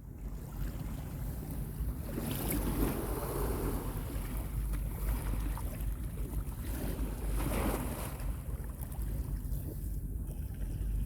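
Small calm sea waves washing in, swelling twice, with wind rumbling on the microphone.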